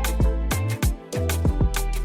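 Background music with a steady beat: punchy kick drums with deep bass and sharp percussive hits over sustained instrumental notes.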